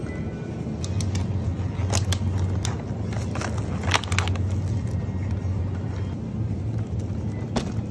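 Groceries being put into a plastic supermarket shopping basket: a few short clicks and rustles of packaging, the loudest about four seconds in as a boxed item goes in. A steady low hum runs underneath.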